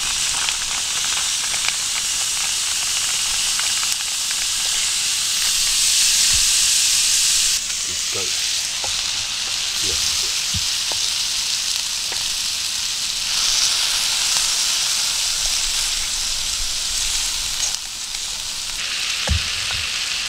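Pieces of chicken and shiitake mushrooms sizzling in a steel frying pan, a steady hissing sizzle that changes in strength a few times.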